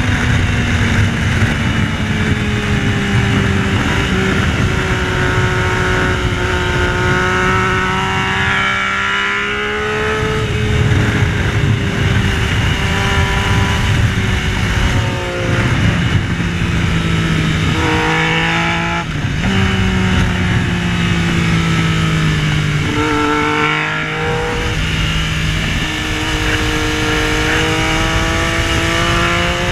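Yamaha Tracer 900's three-cylinder engine heard onboard at racetrack pace, its pitch climbing under acceleration and dropping through gear changes several times, over heavy wind rush on the microphone.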